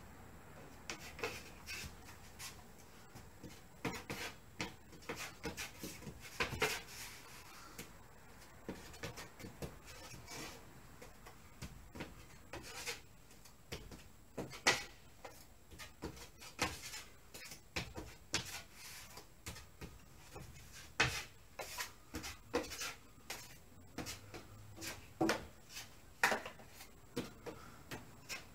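Putty knife dabbing and spreading drywall joint compound (sheetrock mud) onto a wall for a heavy hand texture, in many short, irregular scrapes and slaps, with the knife now and then scraped against the metal mud pan to reload.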